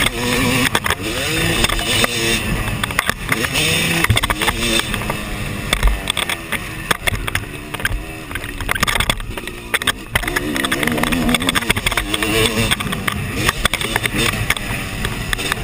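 Yamaha motocross bike's engine revving up and down over and over as it is ridden hard, with wind buffeting and rattling knocks from the bike over the rough track.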